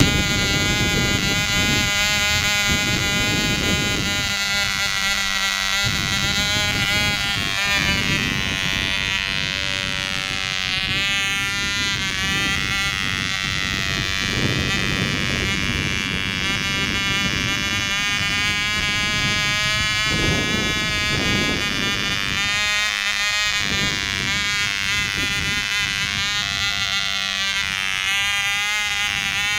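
Small model-airplane engine on a Half A Kadet running at high speed, a steady high-pitched buzz that wavers slightly in pitch, with gusty wind rumbling on the microphone.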